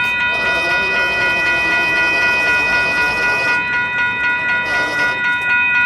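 Kansas City Southern diesel locomotive's air horn sounding one long, steady chord of several notes, over the rolling noise of the passing locomotive.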